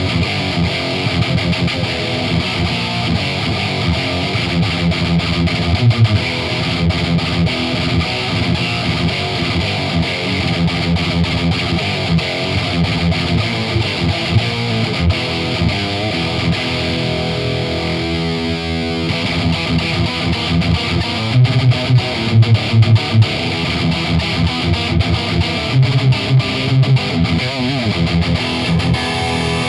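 Heavily distorted electric guitar riffing through a solid-state Randall RG100HT amplifier, shaped by an MXR 6-band EQ and Furman PQ4 preamp, with a Seymour Duncan Dimebucker bridge pickup. Low notes are hit in short repeated bursts, and the low end drops out briefly a bit past halfway.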